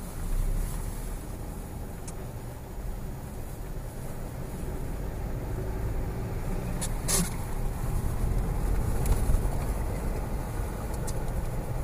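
Road and engine noise of a moving car heard from inside the cabin, a steady low rumble that grows a little louder in the second half. A single short click or knock sounds about seven seconds in.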